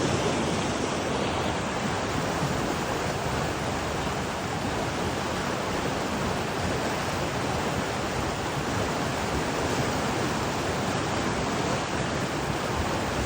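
River water rushing steadily, an even wash of noise with no breaks.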